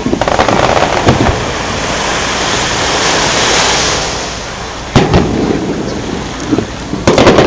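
Aerial firework shells bursting: crackling at first, then a hiss that swells and fades, one sharp bang about five seconds in and a quick run of bangs near the end.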